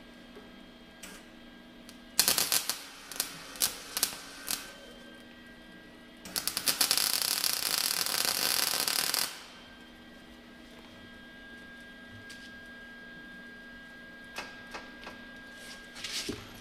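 MIG welder arc welding steel: a short tack about two seconds in, several quick arc strikes after it, then a steady crackling weld of about three seconds. A faint steady hum carries on between the welds, with a few light clicks near the end.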